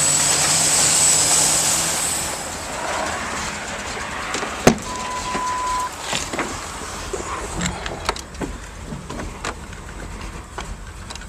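Ford Ranger 4.0 OHV V6 idling, the engine with a vacuum leak in its upper intake manifold; the running noise is loudest for the first two seconds, then drops. Scattered clicks and knocks follow, with a sharp click and a short steady beep about five seconds in.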